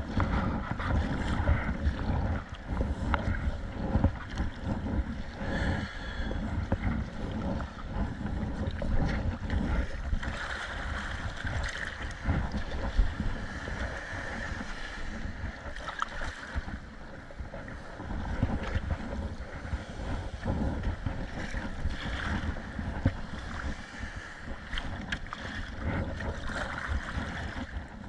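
Wind buffeting the microphone over water splashing and slapping around a kayak paddled through sea waves, with scattered sharp knocks.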